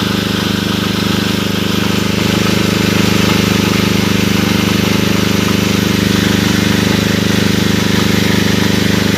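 Multirotor agricultural drone flying, its propellers giving a steady, loud hum that grows a little louder about two seconds in.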